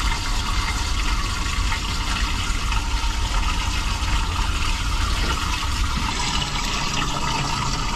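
Steady rush of running water with a low rumble underneath.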